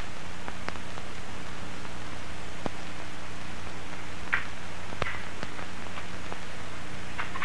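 Steady hiss with a low electrical hum from an old film soundtrack, broken by scattered faint clicks and ticks.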